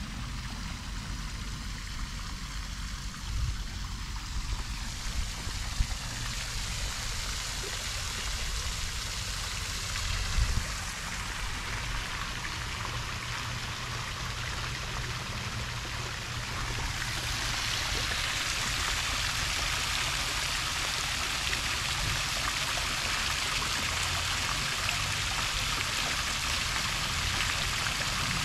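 Water from a fountain's jets splashing into its basin: a steady hiss that grows louder about two-thirds of the way through. A few soft thumps in the first half.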